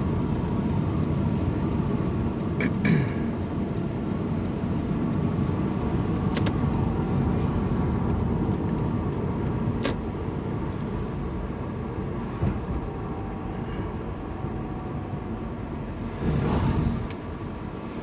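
Steady road and engine rumble heard from inside a moving car, with a few sharp clicks a few seconds apart and a brief louder swell near the end.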